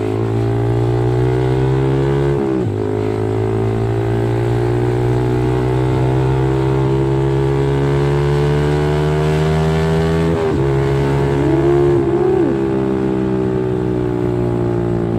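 Yamaha R15 V3's 155 cc single-cylinder engine running through a loud aftermarket R9 racing exhaust, accelerating under load. The note climbs slowly, and it drops briefly twice at the upshifts, about two and a half seconds in and about ten seconds in.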